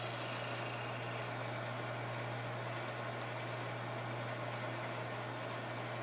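Wood lathe running with a steady low hum while a hand chisel cuts a small spinning wooden disc, turning a toy train wheel, its scraping hiss steady over the motor.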